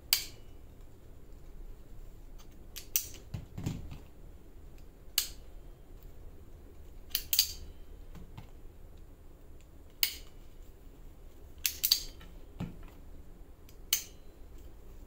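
Red-handled hand cutter snapping shut, about nine sharp metallic clicks, some in quick pairs, spaced every second or two, with a couple of duller knocks in between.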